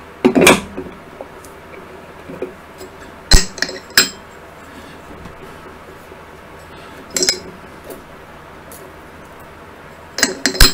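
Parts of a disassembled DC fan motor clicking and clinking against each other as the magnetic rotor and shaft are handled and fitted into the stator housing. There are a few separate sharp clicks several seconds apart, the loudest at about three seconds in and just before the end.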